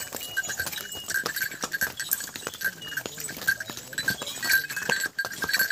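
Horse hooves clip-clopping irregularly on a cobblestone path, many sharp knocks at an uneven pace, with a high pulsing ring.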